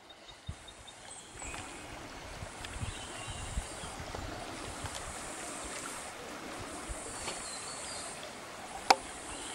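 Steady wash of creek water running at a waterhole, with a few short high chirps, soft low thumps in the first half, and one sharp click near the end.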